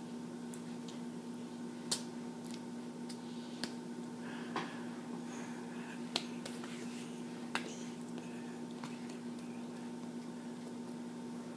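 Five or so sharp, scattered slaps and clicks of hands striking each other during fast ASL signing, over a steady electrical hum.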